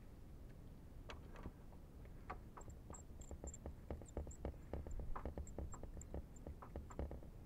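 A small metal snap clip clicking and rattling as it is fastened to a flag's edge against a trailer's side: a quick, irregular run of light clicks and taps from about a second in, over a low rumble.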